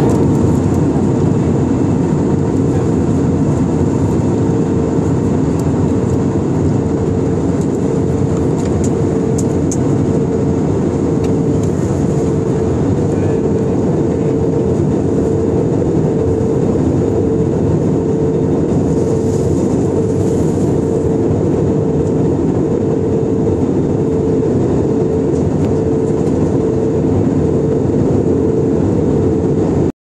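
Jet airliner cabin noise in cruise flight: a loud, steady rushing roar with a steady hum riding over it.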